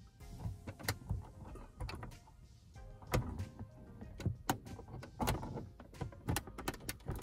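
Irregular small clicks and taps of fingers and a small LED festoon bulb against the plastic overhead light housing of a car as the bulb is pushed into its socket.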